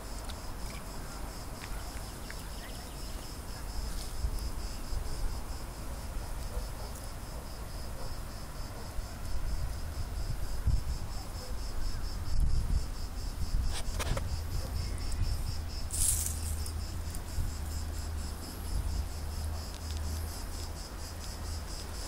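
A steady, high-pitched chorus of insects chirring with a fast, even pulse, over a low rumble and a few brief scuffs.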